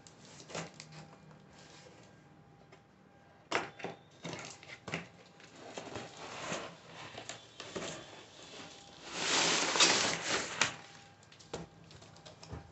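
A cardboard shipping box being cut open and unpacked. There are sharp snips and scrapes of scissors on packing tape, then cardboard flaps and packing being handled with rustling and crinkling, loudest a little after the middle.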